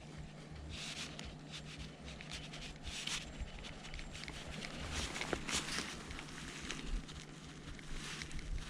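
Faint rustling and scuffing noises, a few scattered times, over a faint steady low hum.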